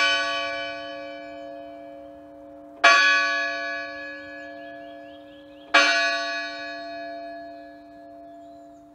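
A single church bell tolled three times, about three seconds apart, each stroke ringing on and slowly dying away.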